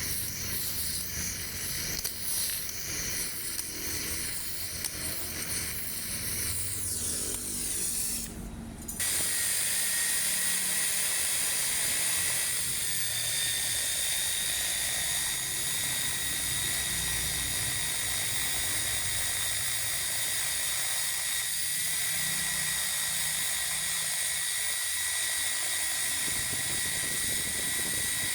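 A high-speed power tool whining. About nine seconds in the sound changes abruptly to a steadier, higher whine with a hiss, which holds to the end.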